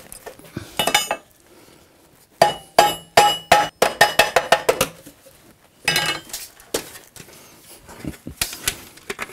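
Metal armour breastplate clinking and ringing as it is handled and tapped, in several quick runs of sharp metallic taps, the busiest run lasting about two and a half seconds.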